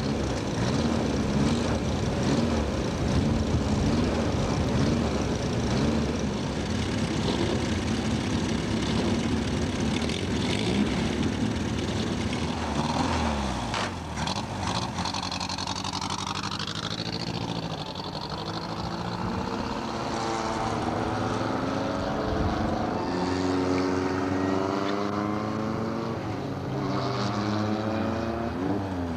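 Formula Ford open-wheel race car engine running hard, its pitch rising and falling as it revs and shifts, with repeated rising sweeps in the second half as the car accelerates through the gears.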